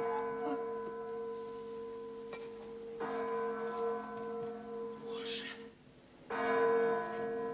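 A church bell tolling slowly, struck about every three seconds, each stroke ringing on and fading until the next. It is a death knell announcing the governor's death.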